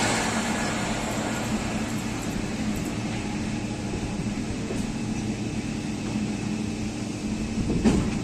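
Steady running noise of a passenger train at speed, heard from the side of the coach: a rumble with a faint hum. The noise of a train that has just passed on the next line eases off in the first second, and there is a brief clatter near the end.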